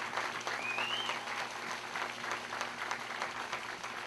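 A crowd applauding, the clapping thinning out toward the end. About half a second in, a brief high note rises and falls over the clapping.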